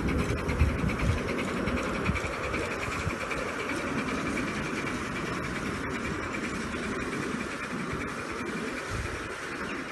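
5-inch gauge Maxitrak J94 Austerity 0-6-0 live-steam model locomotive running on track, a fast even beat of exhaust with wheel and rail clatter, a little quieter near the end.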